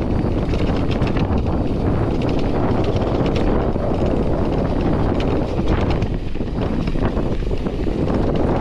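Wind rushing over an action camera's microphone as a mountain bike descends a loose dirt trail, with a steady rumble of tyres on dirt and gravel and frequent small clicks and rattles from the bike over the bumps.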